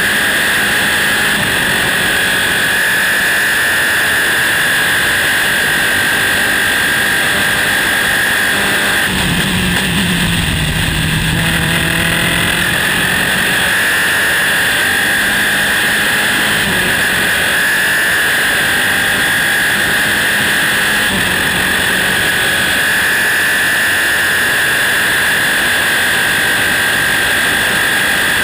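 Onboard sound of a Dallara-Volkswagen Formula 3 car's four-cylinder engine running at high revs at racing speed. About ten seconds in the revs dip for a few seconds with a low rumble underneath, then climb back.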